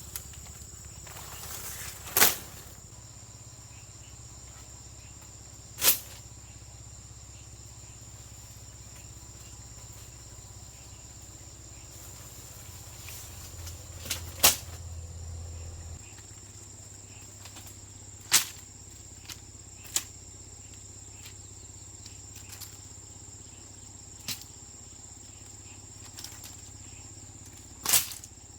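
Loud, sharp single knocks every few seconds from work on a bamboo wall, over a steady high-pitched drone of insects.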